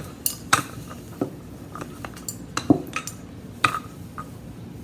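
Kitchen utensils and dishes clinking and knocking against each other and the counter, a string of irregular sharp taps.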